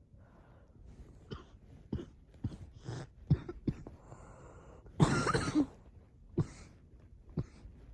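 Repeated coughing: a run of short coughs, then the loudest and longest cough about five seconds in, then two more single coughs.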